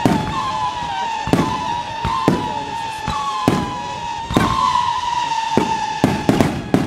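Fireworks battery firing: a sharp bang about once a second as comets launch and burst, coming in a quick cluster of bangs near the end. A steady high whistling tone that slides slowly downward runs underneath.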